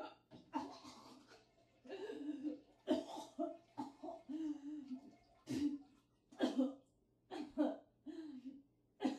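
A person coughing and gasping in short, irregular bursts.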